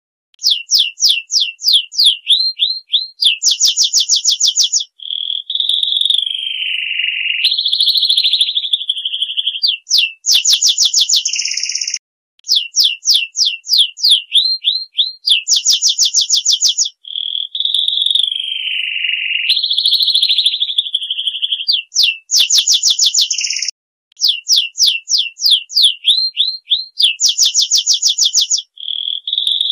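Bird-song ringtone: a bird-song recording looped about every 12 seconds. Each round has a quick run of high down-slurred chirps, a fast buzzy trill, and long whistled notes sliding down in pitch.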